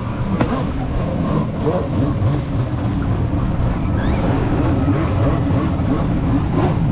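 Jet ski engine running steadily at speed, its pitch wavering.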